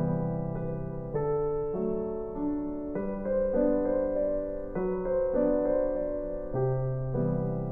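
Gentle piano background music, a slow run of sustained chords.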